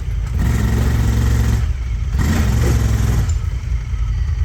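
Honda Talon side-by-side's 999 cc parallel-twin engine revving hard under load on a steep hill climb, surging twice for about a second each and easing back in between.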